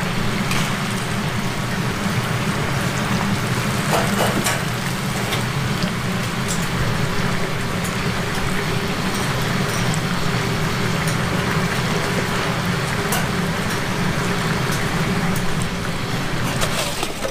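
Battered chicken deep-frying in a large round fryer of hot oil: a steady sizzling crackle over a low hum, with a few sharp clinks of metal tongs.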